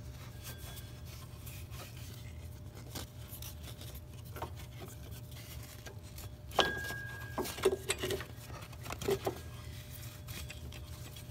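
Faint rubbing and light clicks of hands working a rubber accessory belt onto the engine's pulleys, over a steady low hum. Just past the middle comes one sharp knock that rings briefly, followed by a few more light clicks.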